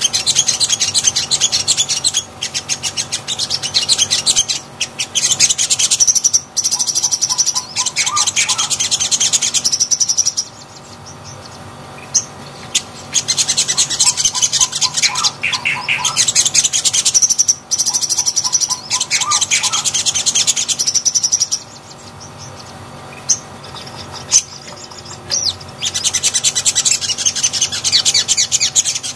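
A caged sogon (sogok ontong) sunbird singing: long runs of fast, high-pitched chirping trills, broken twice by pauses of about three seconds.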